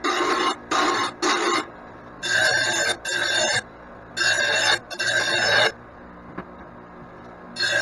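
Grinder wheel sharpening steel mower blades in short passes: about eight bursts of grinding, each under a second, with a quieter steady running sound between.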